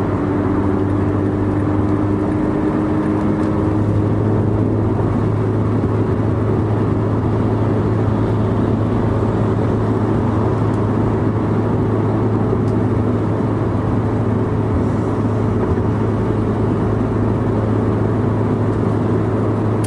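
Mazda 3's exhaust through a Spintech Super ProStreet 9000 muffler, heard from inside the cabin at freeway speed: a steady low drone over tyre and road noise. The drone grows fuller about four seconds in.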